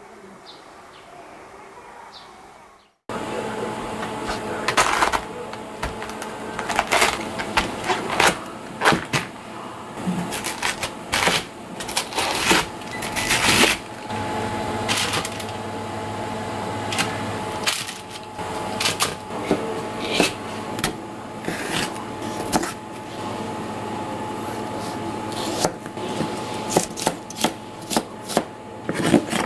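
Kitchen knife cutting cabbage and then chopping carrots on a plastic cutting board: many sharp, irregular knocks of the blade through the vegetable onto the board, over a steady hum. Before that, about three seconds of faint bird chirps.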